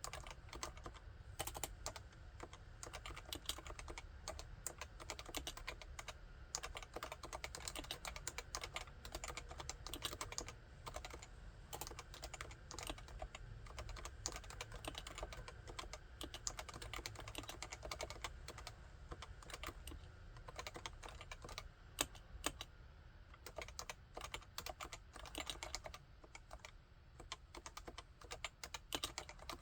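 Continuous fast typing on a Realforce 87UW tenkeyless keyboard with Topre electrostatic-capacitive switches: a steady stream of rounded key clacks.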